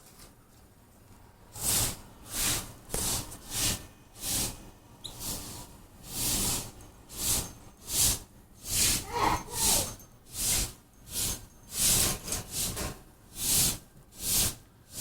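Canary bathing in a water dish, beating its wings: a run of short splashes, about one or two a second, starting a second and a half in.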